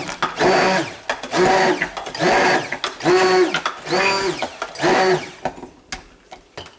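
Braun stick blender pulsed in short bursts in thick hot-process soap batter: about seven pulses, a little more than one a second, each motor whine spinning up and falling back. It stops a little over five seconds in, followed by a few light knocks.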